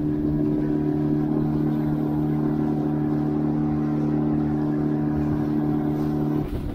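Outboard motor driving an inflatable boat at a steady speed, a constant even-pitched engine note over the rush of water along the hull. Near the end the engine note cuts off, leaving wind on the microphone and splashing water.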